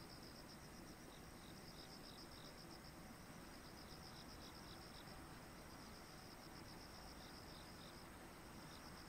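Faint insects chirping: a fast, evenly pulsed high trill with short breaks, and a second insect giving short runs of lower chirps now and then.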